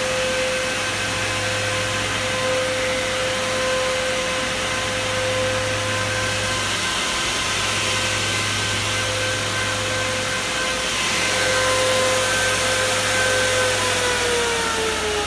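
Three Nidec W12E12BS11B5-57 6500 RPM fans on a 360 mm radiator running at high speed: a loud rush of air with a steady whine. Near the end the whine starts to fall in pitch as the fans slow down.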